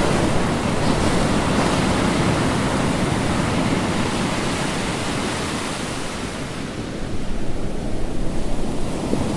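Surf breaking and rushing in a gale, with wind buffeting the microphone; the level turns gustier and more uneven about seven seconds in.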